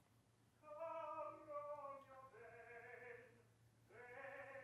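A voice singing faintly in long, drawn-out held notes, with a short pause before the last note.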